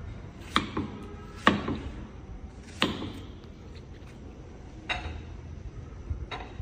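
Knife chopping fruit on a cutting board: about six sharp, irregularly spaced knocks of the blade striking the board.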